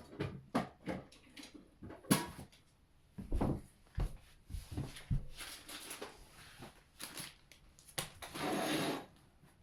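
Household handling sounds: scattered knocks and clicks of objects being set down and moved, like a cupboard or drawer being worked. A sharp knock about two seconds in is the loudest, and a rustling, rushing noise lasting about a second comes near the end.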